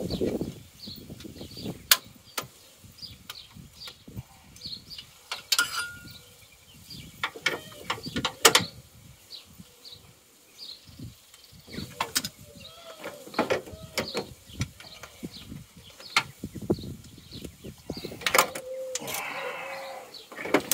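Scattered clicks and knocks of hand tools and hose fittings being handled while coolant hoses are reconnected in an engine bay, with a few short squeaks in the middle and near the end.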